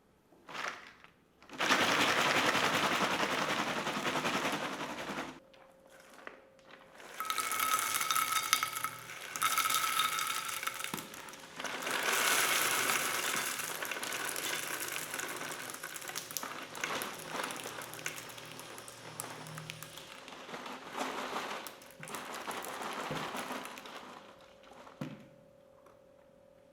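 Electric meat grinder running and crunching popcorn in uneven bursts of crackling, over a faint steady motor hum.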